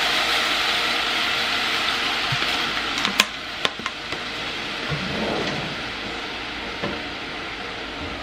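Water poured onto rice in a hot pot, sizzling and hissing and slowly dying down. A few sharp knocks come around three to four seconds in, with one more near seven.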